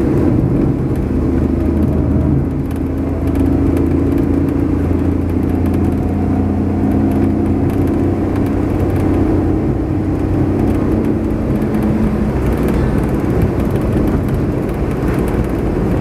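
A car driving at steady speed: a continuous engine and road rumble with a steady hum that drifts slightly in pitch.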